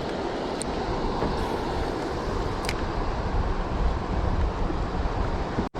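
Steady low rumble and hiss of a boat's outboard motor running, with wind and water noise. The sound cuts out abruptly for a moment near the end.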